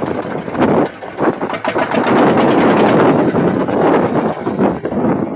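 A small engine running with a fast, even beat, its loudness rising and falling unevenly.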